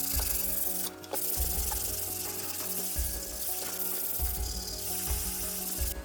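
Sanding a wall of dried joint compound: a steady, scratchy hiss of abrasive rubbing on the surface, dropping off briefly about a second in.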